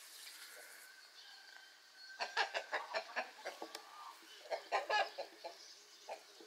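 Domestic chicken clucking in two rapid runs of short calls, the first about two seconds in and the second near the middle.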